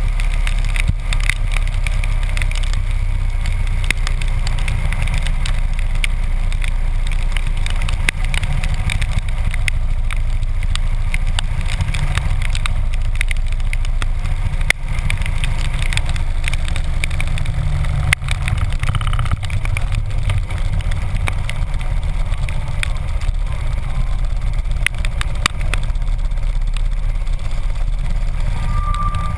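Harley-Davidson V-twin motorcycle engine running steadily while riding in the rain, low-pitched, with scattered sharp clicks of raindrops striking the camera housing.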